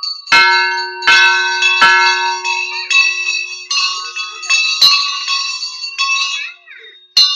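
Hanging brass temple bells struck by hand about once a second, clanging and ringing over one another; a deeper bell struck about half a second in keeps ringing for several seconds. The ringing dies down near the end and one last strike follows.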